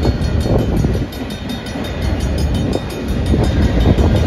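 Freight train of covered hopper cars rolling past: a steady low rumble of steel wheels on rail, with irregular clacks as the wheel sets go by.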